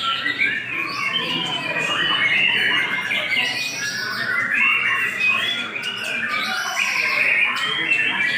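Songbirds singing in dense, unbroken, overlapping chirps and harsh chattering calls.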